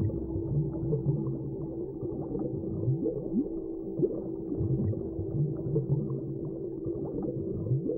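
Whale calls in a deep-sea underwater soundscape: short upward-sliding moans recurring every second or so over a steady low drone.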